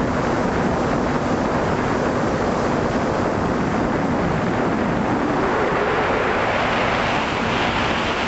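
Wind rushing over the onboard camera microphone of a drone in flight, with a faint steady hum from its motors and propellers. About six seconds in the rushing noise grows brighter and higher.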